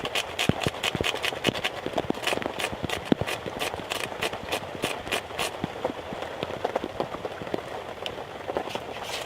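Fatwood being scraped over a card-sized metal cheese-grater tinder scraper to shave fine slivers, a fast run of rasping strokes several times a second. The strokes turn fainter and more irregular a little past halfway.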